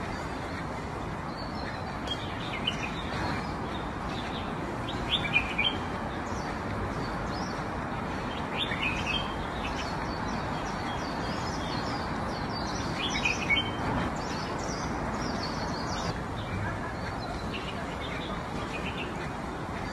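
Small birds chirping in short, scattered bursts over a steady background of outdoor noise.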